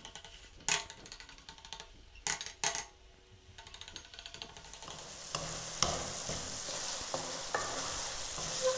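A wooden spatula stirring and scraping okra masala as it fries in an aluminium pot, with a soft sizzle of the oil. The okra is nearly cooked. A few sharp clicks come in the first half, and the steady stirring and sizzle fill the second half.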